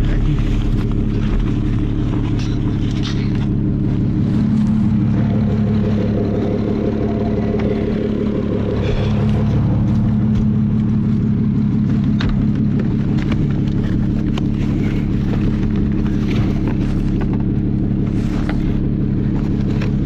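Lotus Evora GT's supercharged V6 idling steadily while it warms up from a cold start, its note wavering briefly about five and nine seconds in. Light knocks and rustles from luggage being packed into the car sit on top.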